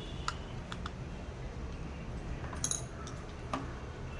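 A few light metallic clinks and taps, scattered and irregular, from small metal parts or tools being handled during a chainsaw starter repair, over a steady low hum.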